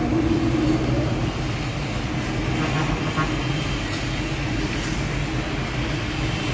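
A steady low mechanical rumble, continuous throughout.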